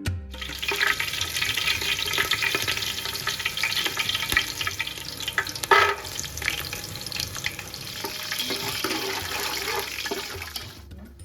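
Food sizzling in hot oil in a pan while being stirred: a steady crackling hiss with scattered small ticks, ending near the end.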